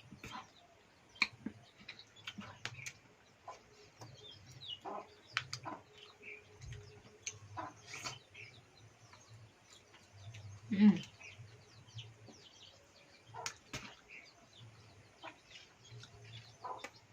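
Scattered bird chirps and fowl calls with small clicks, over a faint low hum. One short louder sound comes about eleven seconds in.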